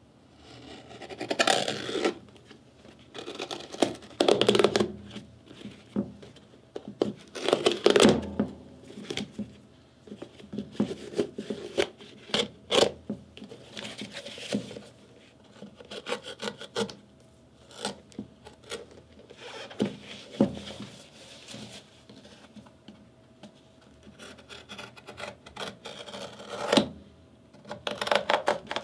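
A Red Wing Blacksmith leather boot being handled and unlaced on a wooden workbench: leather rubbing and scuffing, laces dragging through the eyelets, and the boot knocking on the wood now and then, in irregular bursts.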